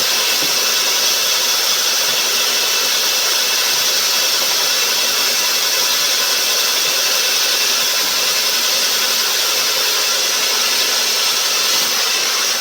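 Sawmill machinery running with a steady, loud noise that does not rise or fall, heaviest in the high hiss.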